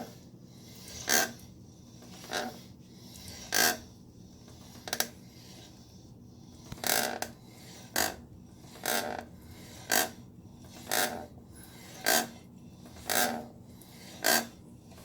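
Rear wheel of a 2016 Triumph Street Triple R making a short scraping rasp that repeats about once a second, unevenly at first and then steadily; the owner does not know its cause.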